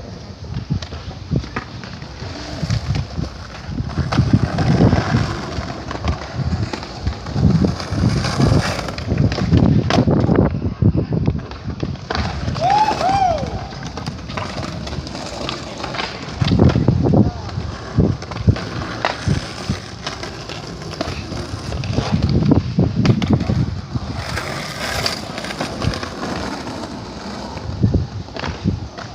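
Skateboards rolling on concrete, with repeated sharp clacks and thuds of boards popping and landing as skaters try ollies.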